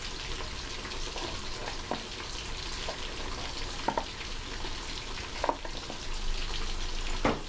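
Oil sizzling and crackling steadily in a wok as pork neck deep-fries, with a few short sharp knocks from kitchen utensils.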